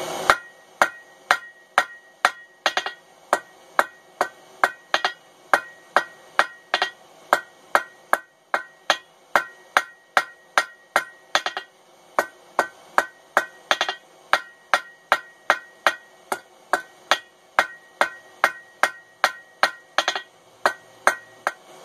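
Hand hammer striking a red-hot round mild-steel bar on an anvil, steady blows at about two a second, each with a short metallic ring from the anvil.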